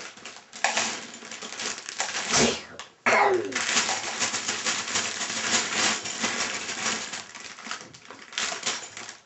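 Loose plastic Lego Technic pieces clattering and rattling together as they are handled and dropped into boxes, louder from about three seconds in.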